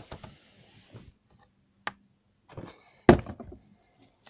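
Handling noise as a camera is picked up and moved: scattered clicks and knocks, with one loud thump about three seconds in.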